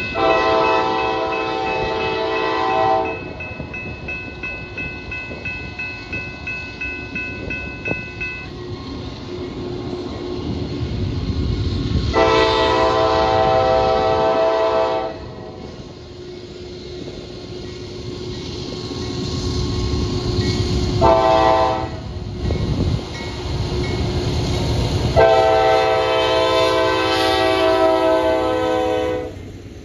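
Locomotive air horn sounding a chord in the long-long-short-long pattern, the standard warning for a grade crossing. The last long blast is the longest. Between the blasts the train's wheels rumble and click rhythmically over the rail joints.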